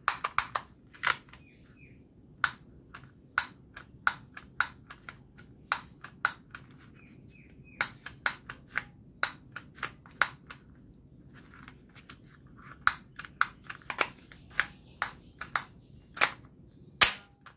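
Plastic toy revolver being clicked over and over, its trigger and hammer snapping: short, sharp, dry clicks, irregular, about two to three a second, with a few short gaps.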